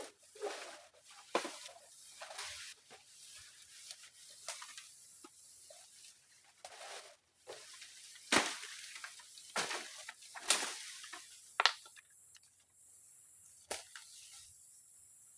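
Irregular sharp knocks and cracks, about eight of them and some louder than others, with rustling between, over a steady high hiss: hands and tools at work building a shelter out in the forest.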